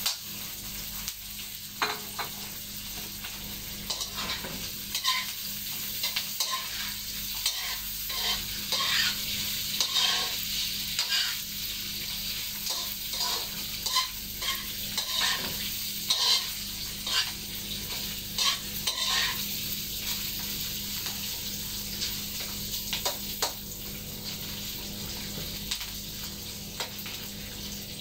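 Beef sizzling in a hot wok while a spatula scrapes and clacks against the pan as it is stir-fried. The clacks come thick and fast for most of the time and thin out near the end, leaving mostly the steady sizzle.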